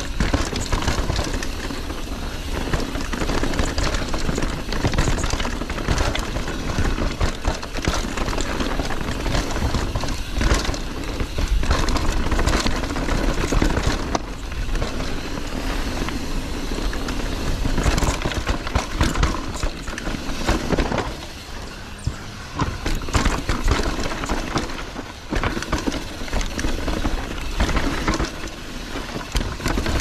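Mountain bike descending a rough dirt trail: tyres running over dirt and rocks with frequent knocks and rattles from the bike over bumps, the noise easing for a few seconds about two thirds of the way through.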